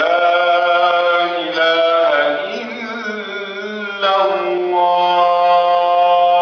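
A male muezzin chanting the adhan, the Islamic call to prayer, in long, ornamented held notes. A new phrase starts sharply at the beginning and another about four seconds in.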